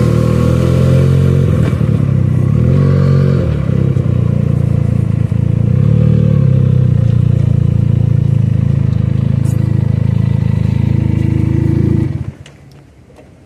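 Benelli 300 motorcycle's parallel-twin engine running at low revs while the bike rolls slowly, with small rises and falls in pitch. About twelve seconds in, the engine is switched off and the sound cuts out suddenly, leaving a few faint clicks.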